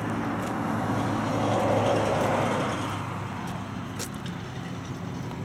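A road vehicle driving past: a swell of tyre and engine noise that rises to a peak about two seconds in and then fades away, over a steady low hum.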